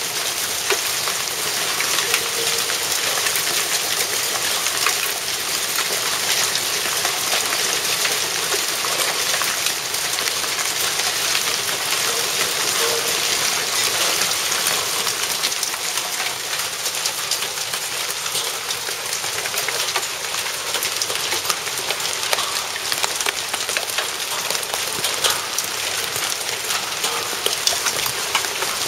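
Hail pelting down in a heavy downpour: a dense, steady hiss of countless small pellets ticking on a concrete wall ledge and a roof.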